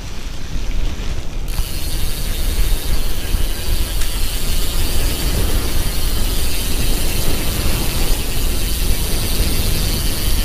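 A bicycle's rear freehub ratcheting rapidly as the bike coasts, over rolling tyre noise and wind rumble on the camera. The higher ratcheting buzz comes in about a second and a half in.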